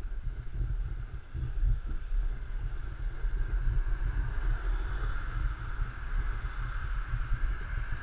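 Wind buffeting a moving action camera's microphone with an uneven low rumble, over the hiss of street traffic that grows louder near the end.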